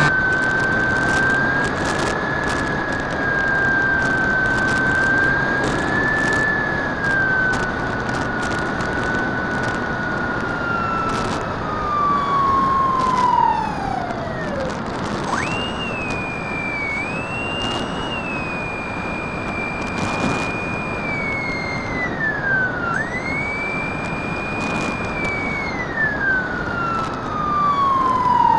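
Drifter ultralight aircraft in flight: a single high whine over a constant rush of air and engine noise. The whine holds steady, sinks away about halfway through, jumps back higher a second later, wavers, and slides down again near the end.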